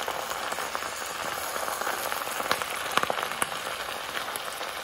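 Leafy greens sizzling in a hot pan as they are stirred with a wooden spatula: a steady hiss with scattered crackles and a couple of sharper taps just after the middle.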